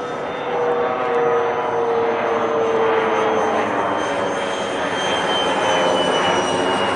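Five-blade electric ducted fan of a radio-controlled F-22 Raptor model jet whining in flight, a steady rushing whine whose pitch drifts slowly down as it passes. It grows louder about half a second in.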